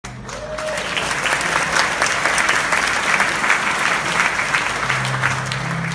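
Audience applauding, the clapping thinning toward the end. Near the end, low sustained orchestral notes begin as the performance starts.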